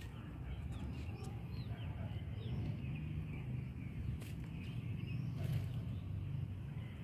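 Birds chirping: short high chirps scattered through, over a low steady rumble.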